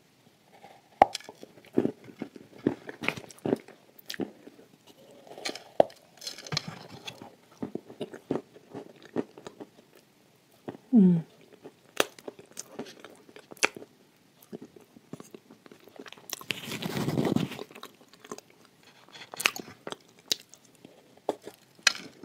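Close-up crunching and chewing as bites are taken from a dry slab of edible clay spread with chocolate paste, with sharp, irregular crunches throughout. A short humming 'mm' falls in pitch about halfway through, and a longer noisy rush comes a few seconds later.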